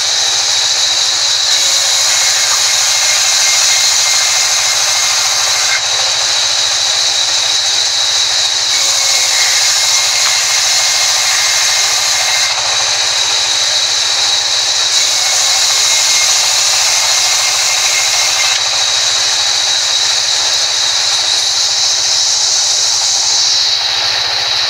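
Sawmill band saw ripping a wooden plank lengthwise: a loud, steady high-pitched whine with a hiss over it. The hiss drops away near the end.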